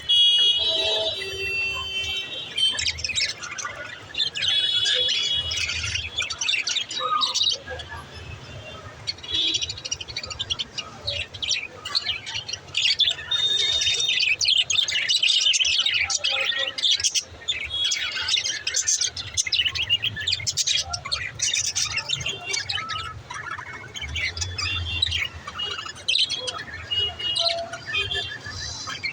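Budgerigars chirping and chattering, many quick calls overlapping without pause.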